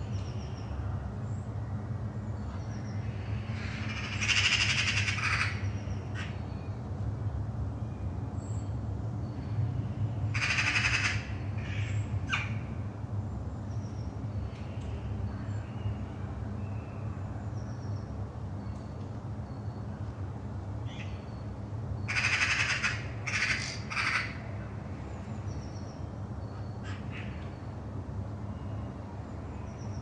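Crows giving harsh caws in three bouts, about four, eleven and twenty-three seconds in, the last a quick run of about four calls, while small birds chirp faintly. Underneath runs a steady low drone of distant aircraft engines.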